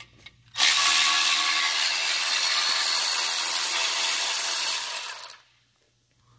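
Cordless electric ratchet running for about five seconds, spinning a loosened clutch pressure plate bolt out of the flywheel, then stopping abruptly.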